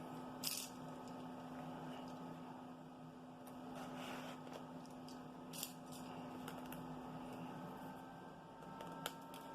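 Faint scratching and rustling as the plastic shrink-wrap on a small cardboard box is opened, a few short scrapes over a steady low electrical hum.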